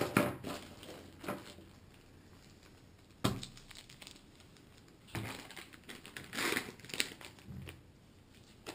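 Small plastic bags of camera-mount parts crinkling and rustling as they are handled and opened, with a single sharp knock about three seconds in.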